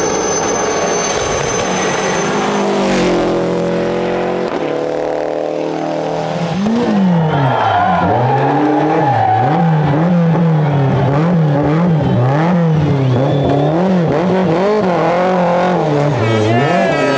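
Rally car engines at full throttle on a tarmac stage: first a car passes with its engine note falling away, then a Group A BMW M3's four-cylinder engine revs up and down again and again, each rise and fall taking under a second, as it is driven hard through corners.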